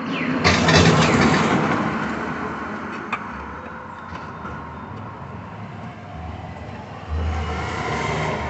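Road vehicle passing, its noise swelling loudly about half a second in and fading away over a few seconds, then a second vehicle near the end.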